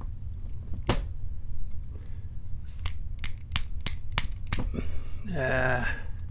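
Guard 445 padlock and its keys being handled: sharp metal clicks and clinks, one about a second in and a quick run of them in the middle. A brief hum from a man's voice near the end.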